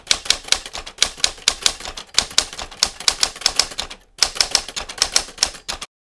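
Rapid run of sharp clicks, several a second, with a brief break about four seconds in, cutting off suddenly just before the end.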